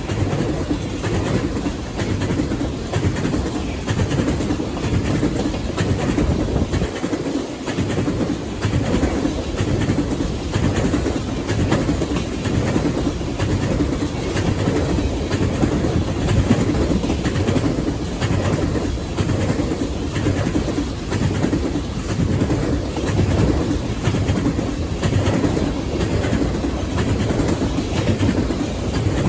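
Railcars rolling past at speed, their wheels clacking over the rail joints in a steady repeating rhythm over a continuous rumble.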